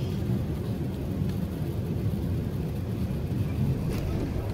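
Steady low rumble of an Airbus A380 on final approach, its engine and airflow noise heard from inside the passenger cabin. A faint click comes about four seconds in.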